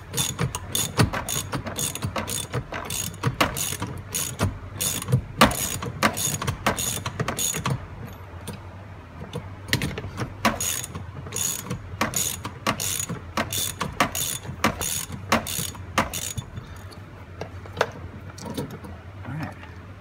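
Socket ratchet clicking at about three clicks a second as it is swung back and forth to back out the upper seat belt anchor bolt on a car's door pillar. The clicking pauses briefly about eight seconds in, resumes, then thins to a few scattered clicks after about sixteen seconds.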